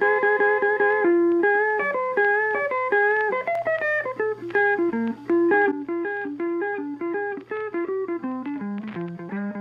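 Instrumental music: a guitar melody picked note by note, several notes a second, changing pitch throughout.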